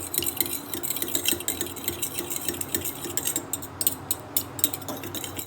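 Eggs being beaten in a mixing bowl, the beater clicking and clinking against the bowl in a quick steady rhythm.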